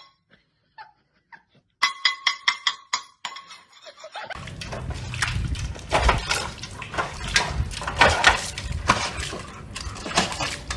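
For about the first four seconds, a sparse run of short squeaky clicks. Then a large dog steps and splashes in a metal water bowl: water sloshing and the bowl knocking, in quick irregular strokes.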